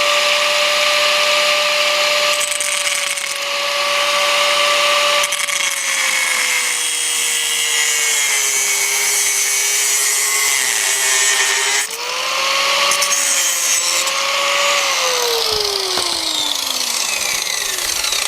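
Angle grinder running and cutting through a crutch tube. Its whine sags in pitch as the disc bites into the tube and picks back up. Near the end it is switched off and winds down.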